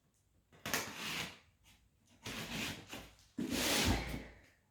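Large cardboard parcel box being handled, rubbing and scraping three times.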